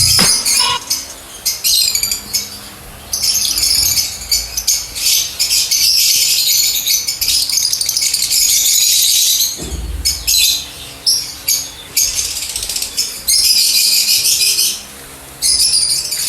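Lovebirds chattering: rapid, high-pitched, harsh chirps and screeches in dense bursts with brief pauses between them.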